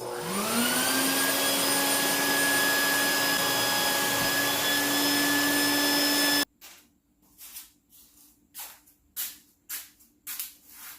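Vacuum cleaner switched on, its motor whine rising as it spins up and then running steadily as it picks up sanding dust, before cutting off abruptly about six seconds in. A series of short scraping sounds follows.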